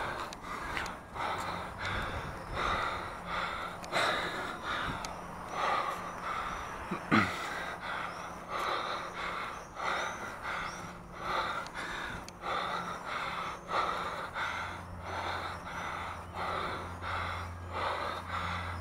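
A person's hard, rhythmic breathing from the exertion of climbing a tall chimney, a breath about every half second, with a single sharp knock about seven seconds in.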